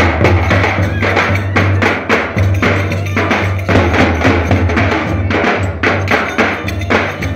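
Turkish köçek dance music played live, led by a davul bass drum beating a dense, fast rhythm with other clacking percussion.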